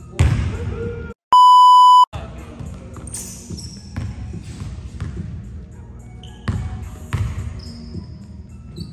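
Basketball dribbled and bouncing on a hardwood gym floor, each bounce ringing in the large hall. About a second and a half in, a loud steady high bleep, the loudest sound here, lasts under a second.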